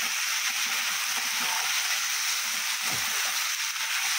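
Potato, eggplant and prawn pieces sizzling steadily in hot oil in a non-stick kadai, stirred with a metal spatula.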